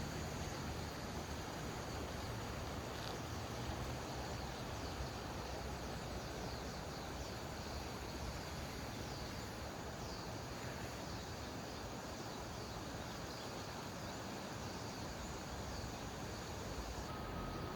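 Steady rush of flowing creek water, with faint high chirping over it.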